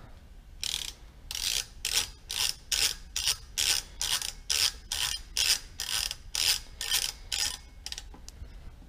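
Socket ratchet on a long extension driving a screw home, its pawl clicking in short, even strokes about two to three a second, starting about half a second in and stopping near the end.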